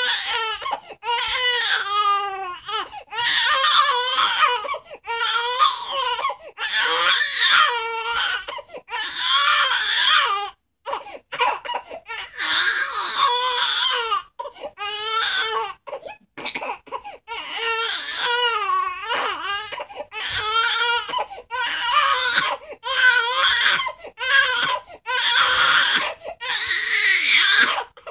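Young baby crying hard: repeated cries of a second or two each, broken by quick breaths, the pitch wavering up and down.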